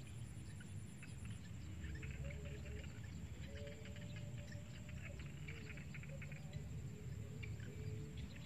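Open-field ambience: insects and birds chirping in quick, scattered chirps, with a steady high insect whine, over a low rumble.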